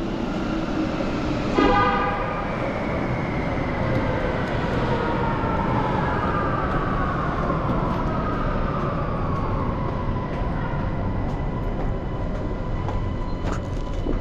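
Electric metro train in the station, a steady rumble under a motor whine that slides slowly down in pitch over several seconds as the train slows, with a short toot about one and a half seconds in.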